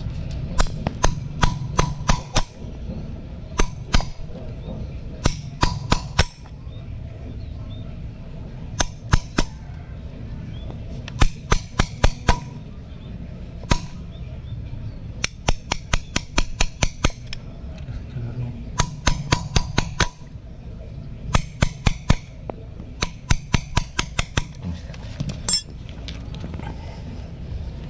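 Hammer striking a steel chisel to carve down the sawn stump of a ficus bonsai trunk: quick runs of sharp metallic taps, several a second, in bursts of about four to eight strikes with short pauses between.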